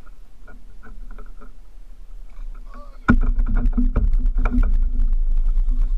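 Water sloshing and knocking against the hull of a fishing kayak, turning suddenly loud about three seconds in with a deep rumble and a rapid flurry of knocks.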